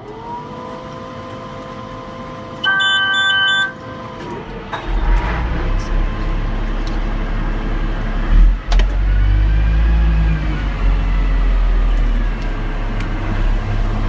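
Atlas Copco MT6020 underground truck starting up: a steady electric whine, then a loud start-warning horn for about a second, after which the diesel engine fires about five seconds in and runs with a deep rumble, swelling briefly near the middle.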